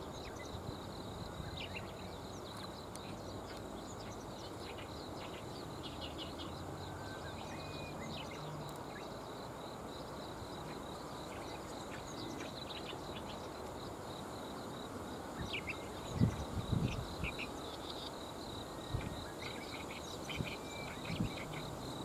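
Riverbank ambience: a steady high insect drone with scattered short chirps of small birds over a low, even background rush. A few low thumps come in the second half.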